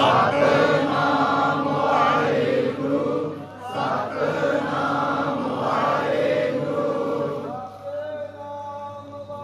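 Sikh devotional chanting by a group of voices, sung in two long phrases with a short break a little past three seconds in; it grows quieter near the end.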